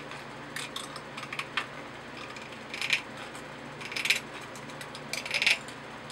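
Tin snips cutting thin sheet metal: several short runs of crisp snipping clicks as the blades close, about a second apart.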